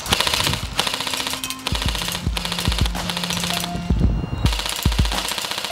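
Echo 1 Rifle Dynamics AK700 electric airsoft rifle firing in rapid strings, a fast rattling clatter, knocking down a row of small targets. Background music with a steady bass beat plays along with it.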